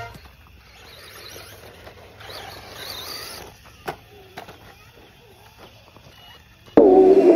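Faint outdoor background noise with a few sharp clicks, then background music with plucked strings cuts in abruptly near the end.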